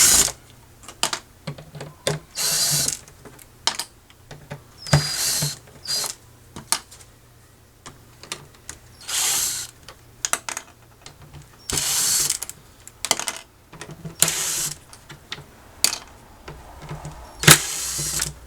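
Screws being backed out of a Coleman cooler's old plastic hinges: about six short bursts of turning, each under a second, with clicks and small knocks between.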